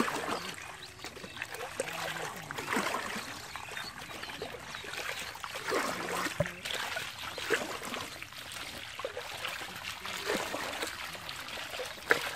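Shallow muddy water trickling and pouring steadily through a gap in a mud dam into a woven basket trap, with many small splashes from a crowd of small fish flipping in the shallow water.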